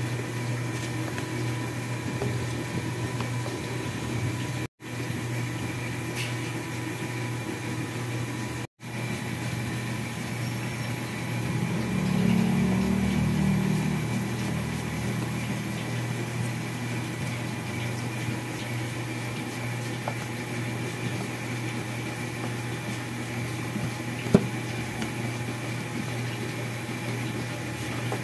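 A steady low mechanical hum with faint steady tones above it. It drops out completely twice, about five and nine seconds in, and there is a single sharp click near the end.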